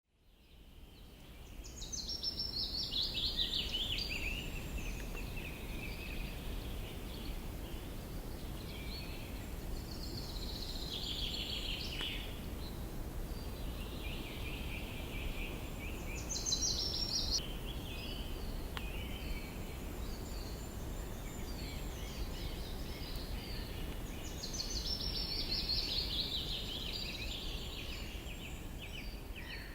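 Songbirds singing: high, descending song phrases recur every few seconds over a steady low background noise, and the sound fades in over the first two seconds.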